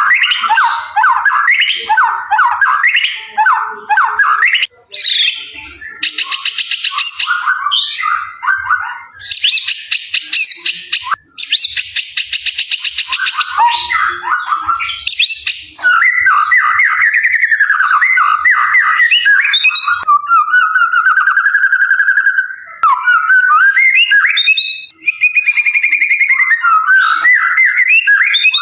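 Songbird singing a loud, varied song: repeated whistled phrases, then rapid high trills a few seconds in, and fast chattering runs through the second half.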